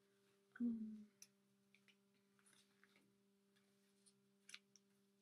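Near silence over a faint steady hum. A brief low murmur comes about half a second in, then faint rustling and small clicks as cotton pants and their clothing tag are handled.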